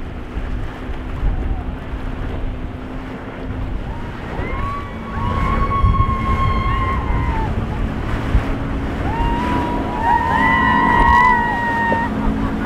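Outboard motor on a Dusky center-console boat running at speed, with water rushing off the hull and wind on the microphone. Twice, people let out long high whooping cheers, the second time several voices together.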